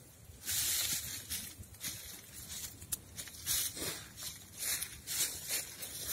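Wood campfire hissing in irregular bursts, the loudest about half a second in, over the burning logs and embers.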